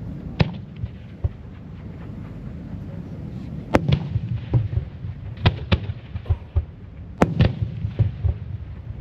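Aerial fireworks shells bursting: sharp bangs at irregular intervals, the loudest about four, five and a half and seven seconds in, over a steady low rumble.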